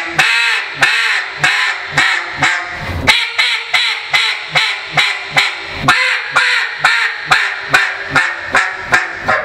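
A Buck Gardner Mallard Magic polycarbonate double-reed duck call blown in a long run of short mallard quacks, about two to three a second.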